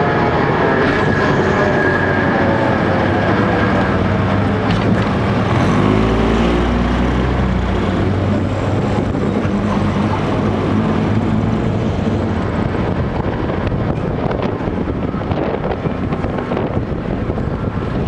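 Diesel engine of a wheeled armoured vehicle running as it drives, heard from on top of the vehicle. The engine note rises and falls with changes of speed, most clearly about five to eight seconds in.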